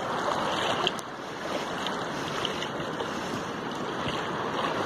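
Shallow seawater sloshing and lapping around someone wading out waist-deep, a steady rush of water noise with a few faint splashes.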